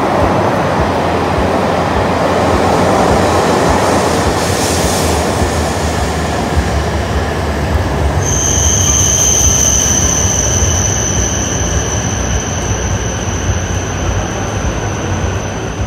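A Tohoku Shinkansen train, an E6 set coupled to an E5 set, rolling in along the platform with a loud, steady rumble and rush of wheels and air. About halfway through, a steady high-pitched squeal sets in as the train slows to stop.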